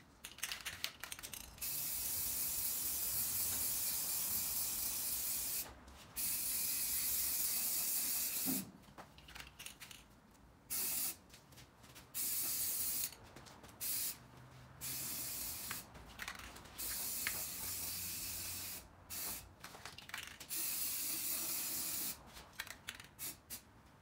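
Aerosol can of black spray paint hissing in a series of bursts. The first two bursts run three to four seconds each, and the later ones are shorter, about half a second to two seconds.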